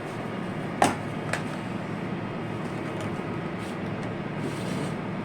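Steel wire rope strands being handled and tucked during a hand splice: a sharp click just under a second in and a lighter one about half a second later, then a few faint ticks, over a steady background hum.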